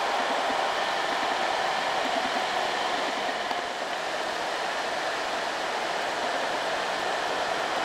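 Steady traffic noise of a loaded diesel light truck climbing the road, its engine and tyres an even hum with no distinct beats, dipping slightly about four seconds in.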